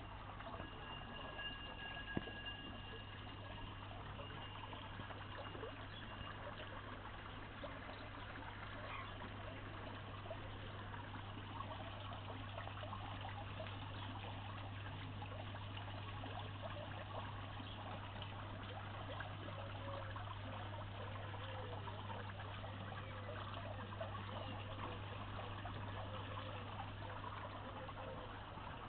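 Water from a garden water feature trickling and splashing steadily off a stone lantern fountain, over a constant low hum.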